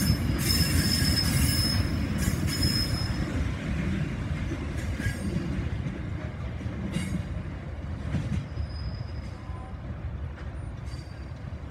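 Container freight wagons rolling past on steel rails, with a rumble and clicks of wheels over the track. A high-pitched wheel squeal sounds for the first few seconds and returns briefly near the end, while the rumble fades as the end of the train draws away.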